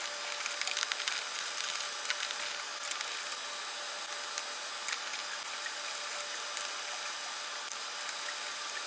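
Faint, scattered metallic clicks of a 19 mm socket working golf cart lug nuts loose off the wheel studs, over a steady hiss.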